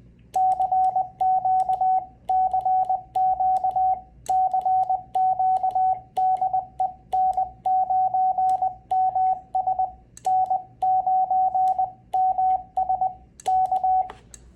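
Morse code sidetone from a small Chinese amateur radio transceiver, a single steady beep keyed into dits and dahs by an electronic keyer worked with a 3D-printed paddle, starting about half a second in and stopping near the end, with faint clicks of the paddle.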